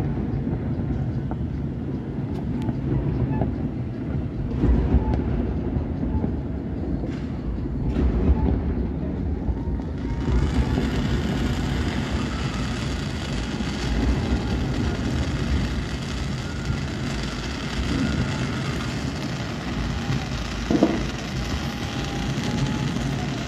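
Many distant fireworks going off across a city at once, merging into a continuous rumble of overlapping bangs, with a few louder thumps standing out.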